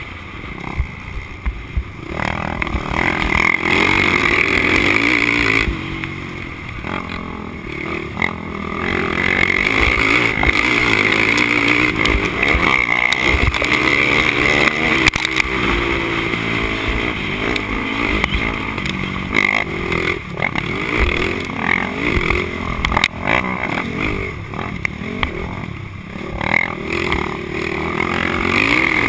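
Honda TRX450R quad's single-cylinder four-stroke engine under hard riding, revving up and easing off in turn, heard from onboard the quad.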